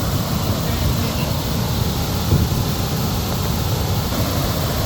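Steady rush of flowing water, mixed with a low, uneven rumble of wind on the microphone.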